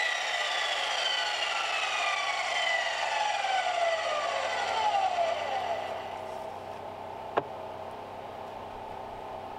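Electric sliding miter saw coasting down just after a cut through a small log: its motor and blade whine falls steadily in pitch and fades over about six seconds as the blade spins to a stop. A single sharp knock follows near the end.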